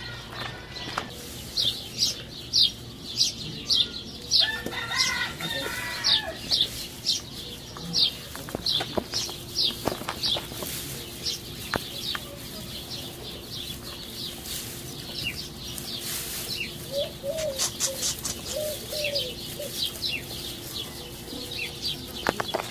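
Birds chirping: a steady run of short, high chirps, two or three a second, with a longer chicken call about five seconds in and a few short, lower clucks later on.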